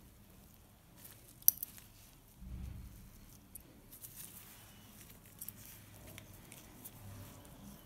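Surgical needle holder and forceps handled while stitching a scalp wound: faint scattered metal clicks, one sharp click about a second and a half in, and a brief low rumble just after.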